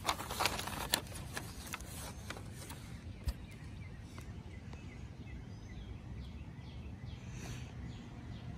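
Quiet outdoor background noise with a few sharp clicks from handling the nylon tent bag and camera in the first three seconds, and faint bird chirps about seven seconds in.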